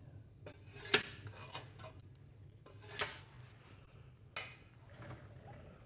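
A few sharp metallic clicks and knocks from tending a wood stove, the loudest about a second in and others near three and four and a half seconds, over a low steady hum.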